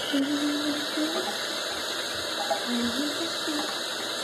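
Bathroom sink faucet turned on, water running steadily into the basin. It starts suddenly right at the beginning and keeps an even rushing hiss throughout.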